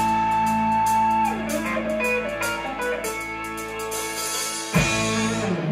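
Live rock band with electric guitars, bass and drums playing held chords under rapid repeated cymbal hits, then one last loud hit about five seconds in that rings and dies away as the song ends.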